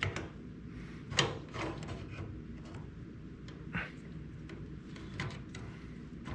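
Hand work on the spring and bolt of an antique washing machine's shift mechanism: a few scattered metal clicks and knocks, with some rubbing and scraping, over a steady low hum.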